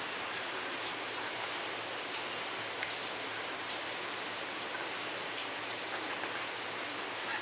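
Steady hiss with a few faint clicks, one about three seconds in and a small cluster around six seconds.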